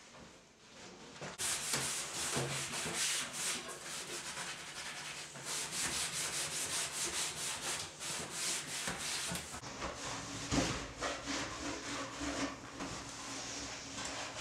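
Gloved hand scrubbing the painted wooden surface of a dresser with soapy water, quick back-and-forth rubbing strokes starting about a second and a half in.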